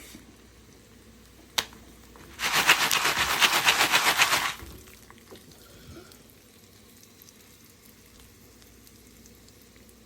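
A burst of rapid crackling and sizzling from the stovetop popcorn pot, lasting about two seconds, with a single click just before it.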